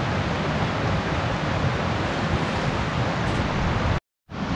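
Steady rushing wind with a shifting low rumble on the microphone. The sound cuts out completely for a moment about four seconds in, then resumes.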